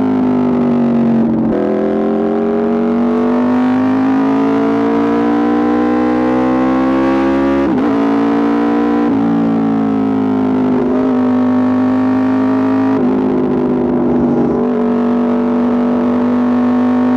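Aprilia RSV4 RR's V4 engine running through an Austin Racing exhaust under acceleration. Its pitch climbs slowly and drops suddenly at each upshift, about four times.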